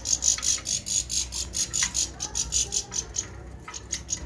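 A small bird bathing: rapid, repeated splashes of water as it flutters its wings, about five a second, with a few short chirps.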